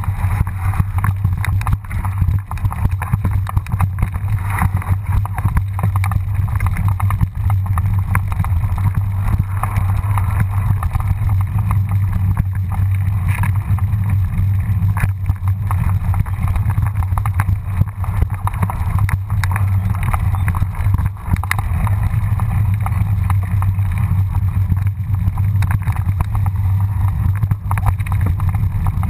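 Mountain bike rolling down a rough, rocky dirt singletrack, heard from a camera riding along: a steady wind rumble on the microphone with constant small knocks and rattles from the bike over the bumps.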